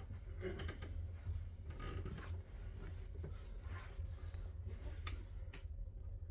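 Wood fire crackling in a fireplace, with irregular soft crackles, a couple of sharp pops about five seconds in, and a steady low rumble underneath.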